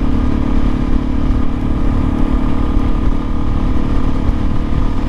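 Kawasaki KLX 400's single-cylinder four-stroke engine running at a steady highway cruise, its note holding an even pitch, with wind and road noise rumbling underneath.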